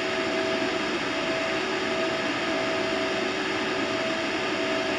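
Steady rushing hum with a faint steady tone running through it, from an Ameritron RF linear amplifier running at power and driving an audio-modulated helium plasma tube.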